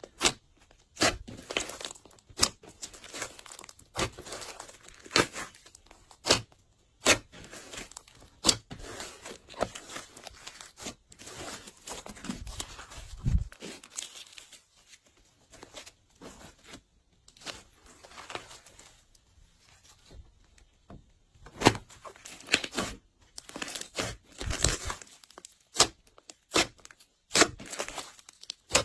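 Glossy slime being handled and mixed, with irregular sharp sticky clicks and pops and short crackling stretches between them.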